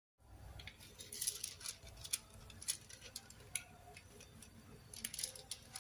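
Faint crinkling and rustling of white rice-wrapping paper being folded by hand around a ball of fried rice, a string of irregular crisp ticks.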